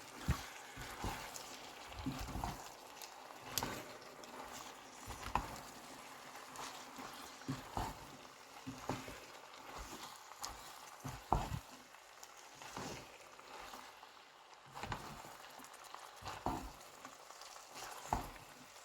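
Spoon stirring ground meat with chopped carrot and potato in a pot, knocking against the pot at irregular intervals over a faint steady sizzle from the cooking filling.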